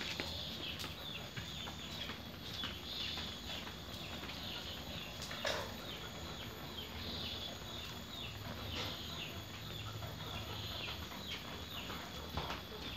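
Birds chirping faintly with short, high, repeated calls, along with scattered light clicks.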